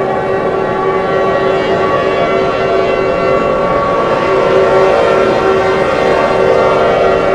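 Alert siren sound effect: many steady tones sounding together as one loud, sustained chord, growing slightly louder about halfway through.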